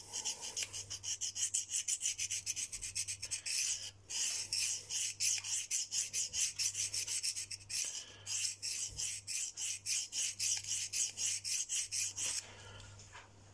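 Steel knife blade stroked rapidly back and forth across a dry DMT diamond sharpening stone, a scraping rasp at about four strokes a second, with brief pauses about four and eight seconds in, stopping shortly before the end. The bevel of a blunted edge is being ground down to reach the apex.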